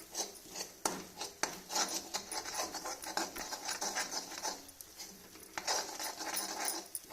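A spoon stirring and scraping a thick ginger, ghee and jaggery paste around a cooking pan: a run of irregular scrapes with clicks of the spoon against the pan.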